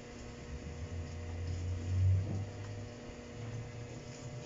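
A steady low hum under a low rumble that swells about two seconds in.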